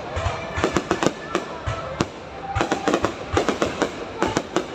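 Fireworks display: a rapid run of bangs and crackling pops, several a second, easing briefly about halfway through before picking up again.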